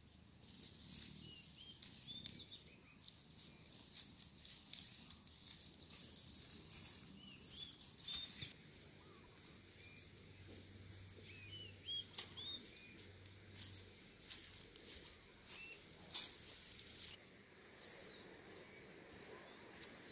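Footsteps and rustling through dry grass and brush, in uneven crackling strokes, with small birds chirping now and then.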